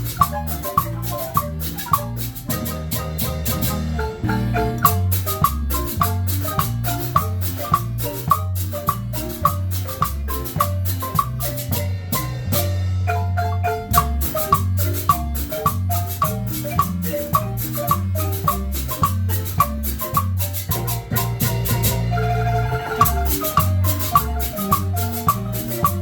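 Marimba band playing an upbeat tune: quick struck marimba notes over a bass line, with a steady percussion beat.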